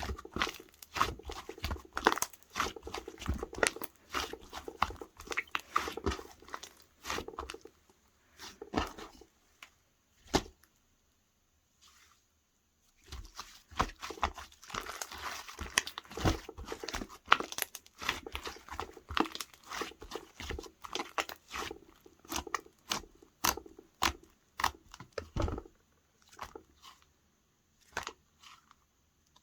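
Hands squishing, pressing and stretching slime: a dense, irregular run of sticky clicks, pops and crackles, pausing for a couple of seconds about ten seconds in.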